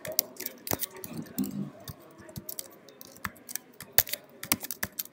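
Typing on a computer keyboard: quick, irregular keystroke clicks, a few louder than the rest.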